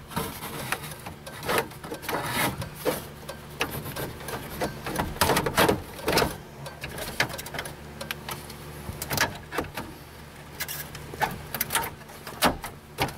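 Plastic dashboard trim on a Chevrolet truck clicking and knocking as the instrument cluster bezel is handled and snapped into place, irregular taps and snaps over a low steady hum.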